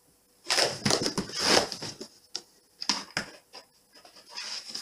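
A cat's claws scrabbling and scratching on a cardboard slide as it climbs up it: a dense run of loud scraping about half a second in, lasting over a second, then scattered shorter scratches and taps.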